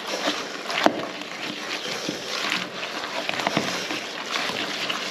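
Damp boilie mix being stirred with a spatula in a plastic bucket: continuous scraping and rustling against the bucket, with scattered knocks of the tool on the sides, the sharpest just under a second in.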